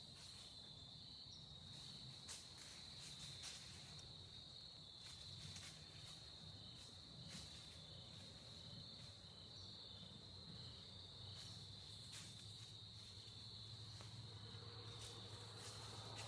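Faint, steady high-pitched trilling of insects, with a few soft ticks scattered through it.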